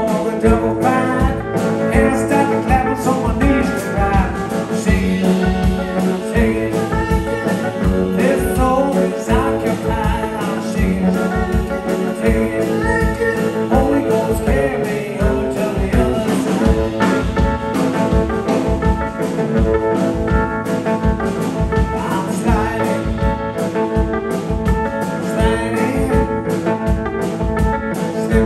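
Live blues band playing a song, with guitar over a steady low beat of about two pulses a second.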